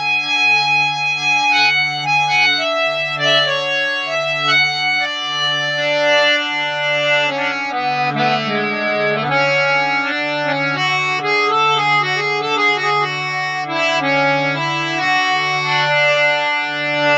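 Male-scale harmonium being played: a melody of sustained reed notes over a low note repeated about once a second.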